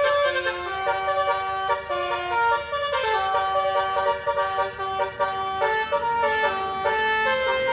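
Bus telolet horn: a set of musical air horns playing a tune of held notes that step up and down in pitch.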